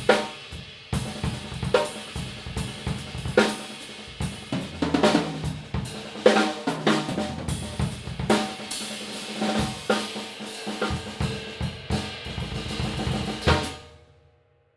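Yamaha Oak Custom drum kit played with snare, bass drum, hi-hat and cymbals, heard through a room microphone. A last loud hit comes about three-quarters of a second before the end, and the kit rings out to silence.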